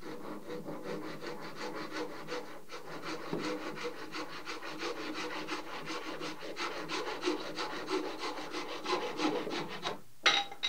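Handsaw cutting across a thin wooden ribband in fast, even strokes of about five a second. A short clatter comes near the end.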